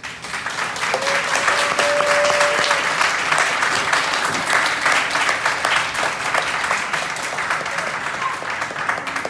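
Audience applauding: dense clapping that starts suddenly and eases slightly toward the end. A short held tone rises over it about a second in.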